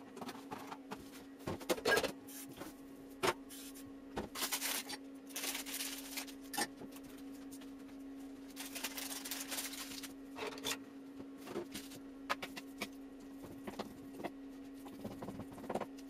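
Scattered light taps and clicks with two brief rustling hisses, about four and nine seconds in, over a steady hum.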